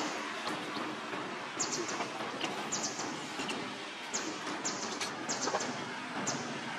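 Outdoor ambience: a steady hiss with short, high chirps from small birds, coming in quick clusters of two to four several times.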